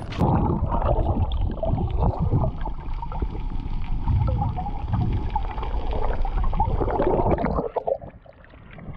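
Choppy saltwater heard from just under and at the surface: muffled gurgling and sloshing with crackling bubbles, the high end cut off. It dips quieter for a moment about eight seconds in.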